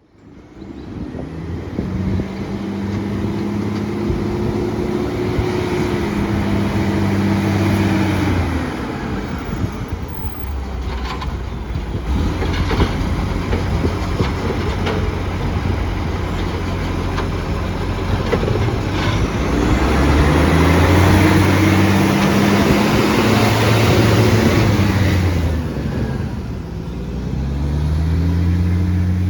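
Garbage truck's diesel engine revving up and dropping back several times, running loud and rough through a massive exhaust leak.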